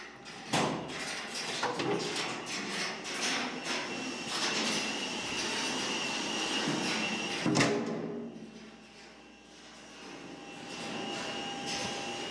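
Heavy iron door being dragged, with a long metallic grinding scrape and a thin squeal running through it. Sharp clanks about half a second in and again about seven and a half seconds in. The scraping eases off for a moment before picking up again.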